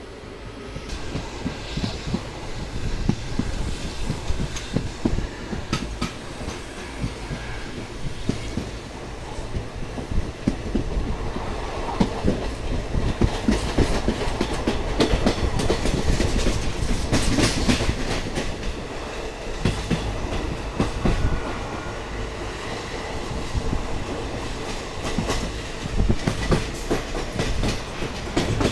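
Train running through a rail yard, heard from on board: its wheels clatter over rail joints and points, over a steady rumble. The clatter gets louder about a second in and is at its busiest around the middle.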